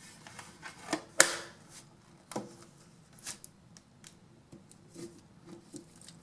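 Small parts and packaging being handled on a workbench: a series of scattered clicks and knocks, the loudest a little over a second in, then lighter taps.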